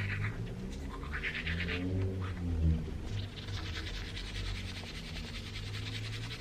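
A pet dog, an XL American bully, breathing heavily and grumbling, with a steady rasping breath through the second half.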